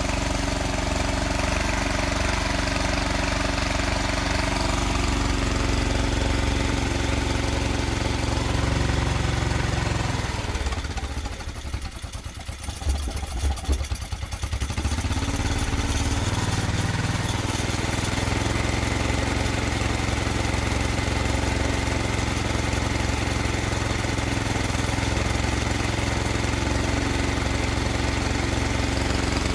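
Briggs & Stratton 5.5 hp single-cylinder OHV engine running on a mix fed largely with vinegar through a GEET reactor, holding a steady speed. About ten seconds in it drops in level and fires unevenly for a few seconds, then picks back up to a steady run.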